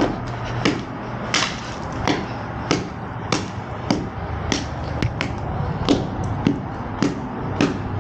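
Mallet striking thick ice again and again in a steady rhythm, about a dozen blows some two-thirds of a second apart, chipping at ice that has frozen a hose in place. A steady low hum runs underneath.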